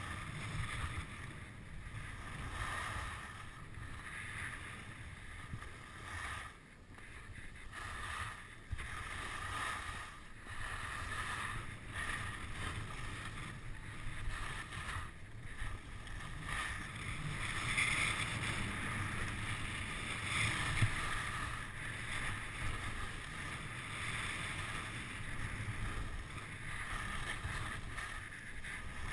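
Skis sliding and carving over packed spring snow, a hiss that rises and falls through the turns, with wind buffeting the microphone as a low rumble.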